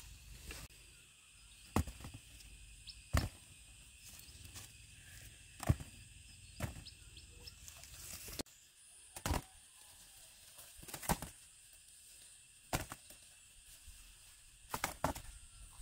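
About ten sharp knocks or snaps at irregular intervals of one to two seconds, over a faint steady high hum.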